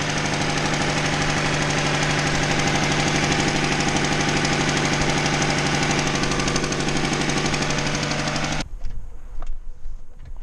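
Honda D16Y7 four-cylinder engine running steadily with a rapid pulsing tick from a leaking exhaust manifold, which the owner has found rusted thin at the cast manifold. The engine sound cuts off abruptly near the end, leaving a few light clicks.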